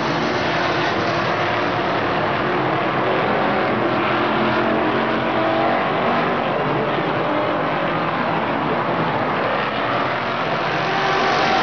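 Short-track stock car engines running at speed around a paved oval: a steady, loud drone of several cars, the engine pitch shifting a little as they go by.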